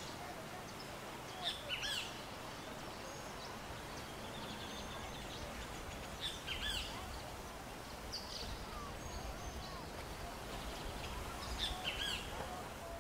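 Outdoor ambience: birds chirping in short bursts of arched calls four times, with a few fainter calls between, over a steady background hiss.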